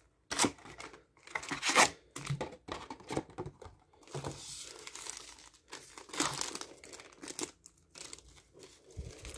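Foil trading-card booster packs crinkling and rustling as they are handled, taken out of the box and stacked, in irregular bursts with louder crackles about half a second in and again near two seconds in.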